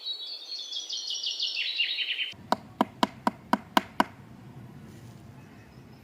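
Repeated quick high chirping trills, like a small bird, for about two seconds. Then the sound changes abruptly to a run of about seven sharp taps, roughly three a second, over low steady background noise.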